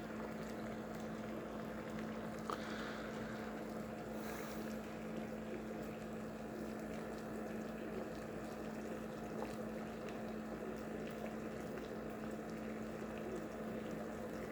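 Pot of water at a rolling boil on a stove, bubbling and churning steadily, with a steady low hum underneath.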